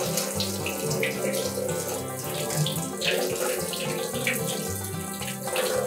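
Kitchen tap running into a metal bowl of soaked soya chunks as they are rinsed by hand, the water splashing off the chunks and fingers.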